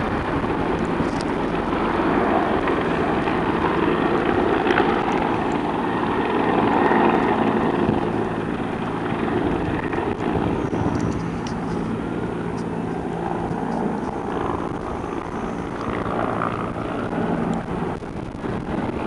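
Helicopter flying, a continuous engine and rotor drone that gets a little quieter in the second half.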